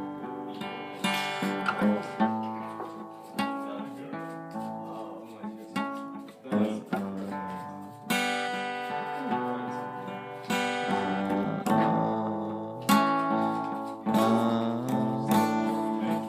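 Acoustic guitar music: chords plucked and strummed, with a new chord or note struck about every second.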